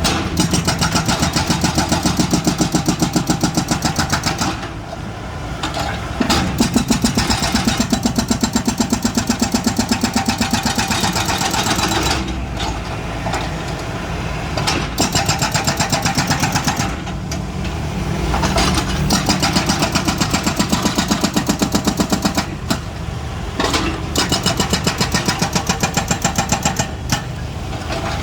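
Excavator's diesel engine running with a rapid pulsing beat, working up under load and easing back several times in repeated digging cycles.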